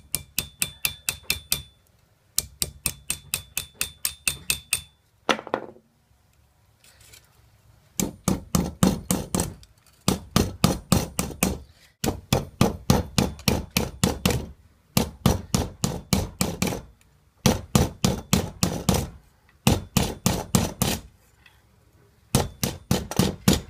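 Rapid hammer and mallet blows on a silver strip over a metal hatchet stake, folding its edge over a silver wire. The blows come about six a second in runs of two to three seconds with short pauses. The first runs carry a faint metallic ring.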